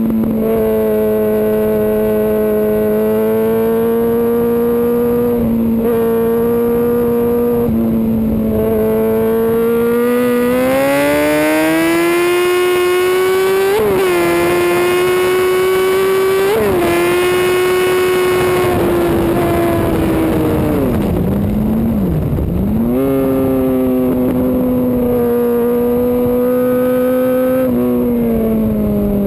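2005 Yamaha R1's inline-four engine at high revs with heavy wind rush. It holds a steady note, climbs hard about ten seconds in with two brief blips, dips sharply from around twenty seconds in as the bike slows, then picks up and steadies again before falling away near the end.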